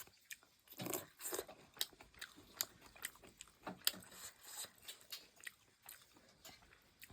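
A person eating noodle soup: quiet, irregular chewing and lip smacks with short clicks.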